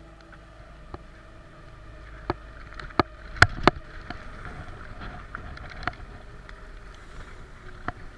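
Bicycles being ridden: a steady rolling noise with sharp knocks and rattles, the two loudest about three and a half seconds in.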